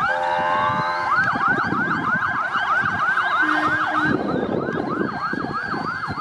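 Fire engine sirens in a fast yelp, rising and falling about four times a second, with a second siren overlapping in the latter half, over the rumble of the fire vehicles' engines.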